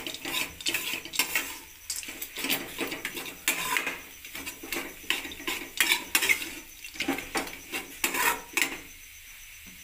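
A perforated steel spatula scraping and knocking against a steel kadhai as it stirs a dry, crumbly flour-and-peanut mixture, in quick irregular strokes. The stirring stops near the end.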